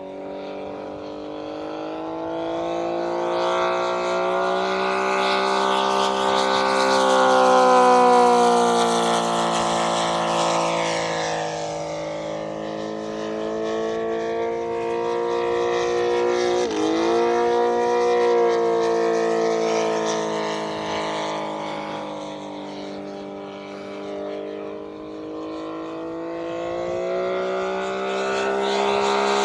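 Radio-controlled model airplane engine running in flight, swelling and fading in loudness with a slowly wandering pitch as the plane makes its passes. There is one sharp dip in pitch about two-thirds of the way through.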